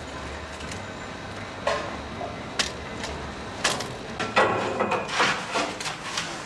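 Metal clanks and knocks as steel bars of a rear cart's frame are handled and fitted. The sharp strikes start about a couple of seconds in, six or seven of them at uneven intervals, and one near the middle rings briefly.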